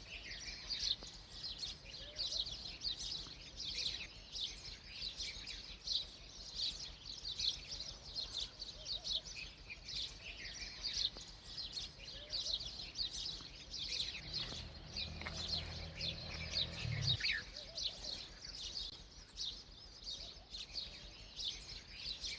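Many small birds chirping continuously in quick, overlapping calls. A low steady hum joins for about three seconds around two-thirds of the way through.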